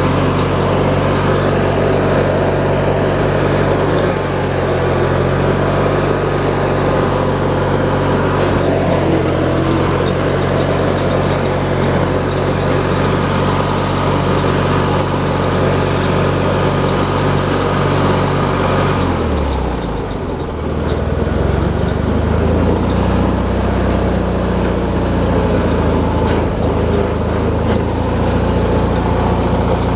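Hydrostatic riding lawn mower being driven: its engine runs steadily along with a whine from the drive, and the new motion drive belt is not slipping or squawking. About two-thirds of the way through the engine note dips and drops in pitch, then steadies.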